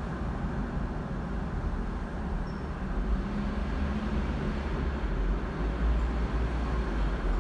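Steady low vehicle rumble with no distinct events, heard from inside a stationary car.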